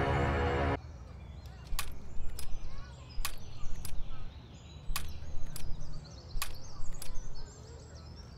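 Tense background music cuts off just under a second in. Then a metal walking frame is lifted and set down on a paved path, a cluster of sharp knocks about every one and a half seconds, with birds chirping faintly.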